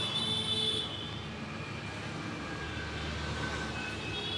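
Roadside street traffic: a vehicle horn trails off in the first second, then the steady hum of passing traffic goes on, with a low engine rumble swelling toward the end.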